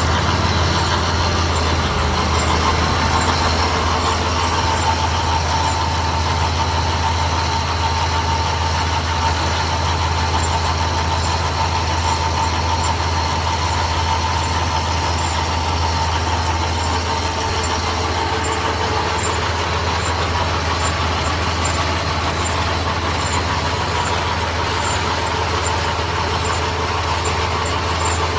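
Tractor engine running steadily while powering a John Deere 560M round baler: a constant low engine drone with a steady machinery whine above it.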